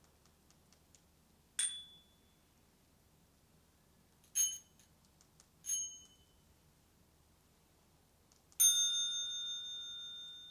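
Bicycle bells rung one strike at a time: short single dings about a second and a half, four and a half and six seconds in, then a louder ding about two-thirds through that rings on with several clear tones.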